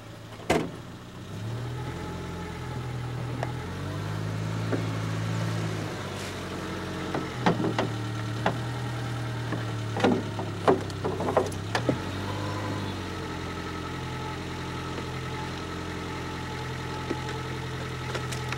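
A vehicle engine running, its low hum stepping up and down in pitch a few times. Several sharp knocks or rattles come through, one about a second in and a cluster near the middle.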